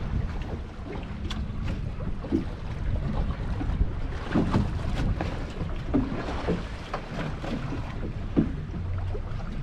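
Wind buffeting the microphone on a small fishing boat, over water sounds around the hull, with scattered short knocks and splashes, the strongest about halfway through and near the end.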